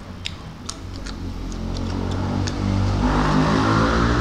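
A few wet mouth clicks from eating with the fingers, then a motor vehicle's engine rumbling in and growing louder, loudest near the end.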